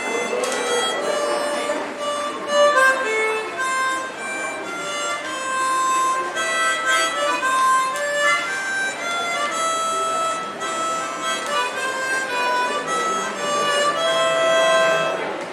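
Instrumental music: a melody of steady, reedy held notes played on a keyboard or reed instrument, with no singing.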